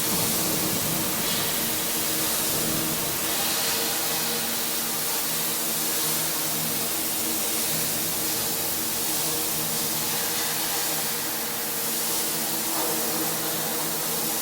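Pressure washer running steadily: a constant engine hum under the hiss of high-pressure water spray.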